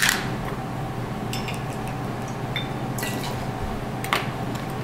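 Light clinks of glass and metal bar tools being handled, a glass bottle and a metal jigger or mixing glass knocking together as a measure of vodka is poured. There is a sharper clink at the very start, then a few scattered ones, over a steady low hum.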